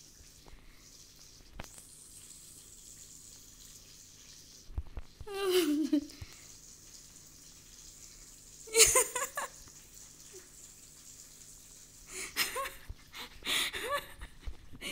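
A person's voice in a few short bursts of laughter and wordless vocal sounds: a falling vocal sound about five and a half seconds in, another burst near nine seconds, and a run of choppy giggling in the last few seconds, with quiet stretches between.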